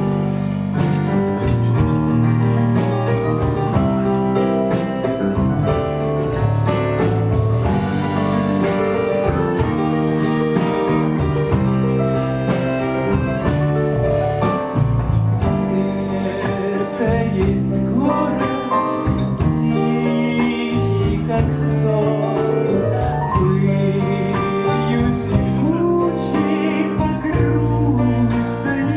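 Live band music: grand piano, bayan (button accordion), clarinet, bass and drums playing a song at a steady loudness.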